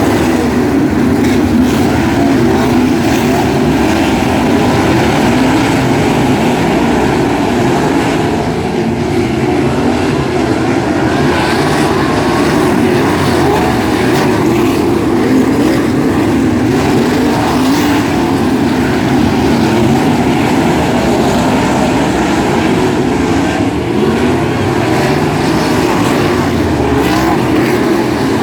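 A field of 360 sprint cars with 360-cubic-inch V8 engines running together on the dirt oval. It is a loud, steady mass of engine noise whose pitch wavers up and down as the cars circle.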